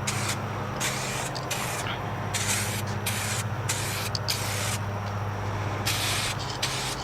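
Aerosol can of 2K clear coat spraying a light coat onto a wheel rim, the hiss coming in a run of short bursts with brief breaks between them.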